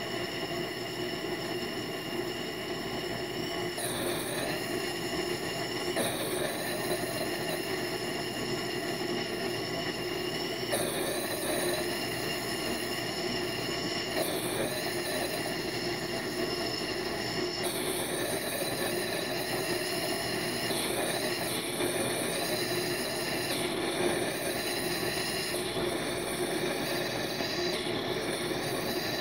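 Liquid nitrogen purge venting from a frost-covered nozzle: a steady hiss with a shrill, squealing whistle of several tones on top, its pitch dipping briefly every few seconds.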